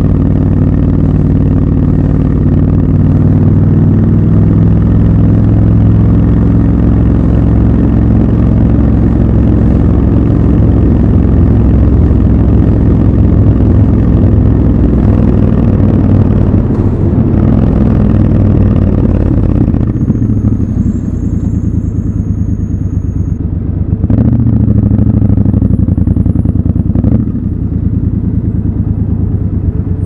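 Triumph Scrambler 1200 XC's 1200 cc parallel-twin engine running as the bike rides through city traffic, heard raw from the rider's position. About twenty seconds in it eases off to a lower, quieter run as the bike slows, and a couple of sharp knocks follow.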